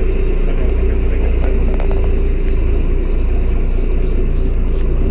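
Fishing boat's engine running steadily: a low rumble with a steady hum over it.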